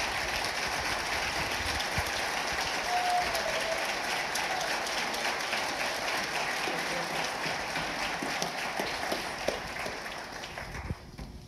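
Theatre audience applauding, a dense patter of clapping that dies away near the end.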